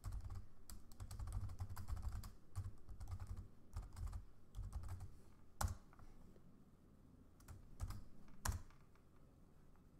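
Computer keyboard typing: a quick run of keystrokes for about five seconds, then three separate, sharper single key presses in the second half.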